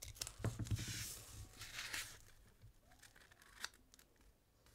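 Paper coin-roll wrapper on a roll of dimes being torn open and unrolled: paper tearing and crinkling, with a few short clicks, the sharpest about three and a half seconds in.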